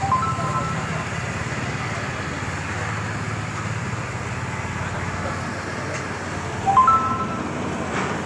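Roadside traffic with a steady low engine hum, broken by two short high chirps, one right at the start and a louder one near the end.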